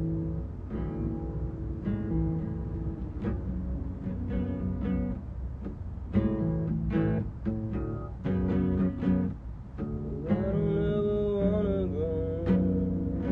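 Acoustic guitar played unaccompanied, a run of plucked and strummed chords with clear note attacks. About ten seconds in, a voice sings along for a couple of seconds.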